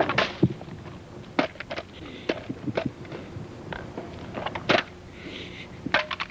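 Irregular knocks and clicks, a few a second, with two short spells of scraping hiss.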